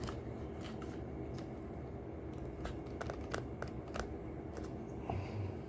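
Light scattered clicks and rustles of hands handling a camera and tripod while focusing, over a low steady hum.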